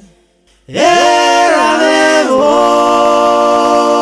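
Unaccompanied singing voice performing a slow soundtrack song. After a brief pause it sings a phrase that dips in pitch, then holds one long note.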